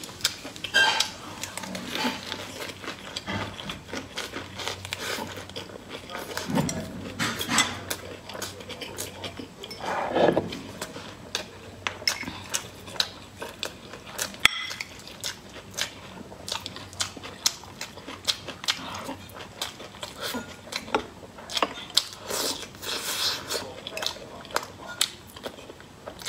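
Close-miked mukbang eating sounds: chewing and crunching of food, including a lettuce wrap, with frequent sharp clicks of chopsticks against ceramic bowls and a cup.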